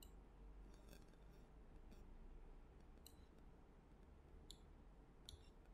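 Near silence: low room hum with a few scattered, faint computer mouse clicks.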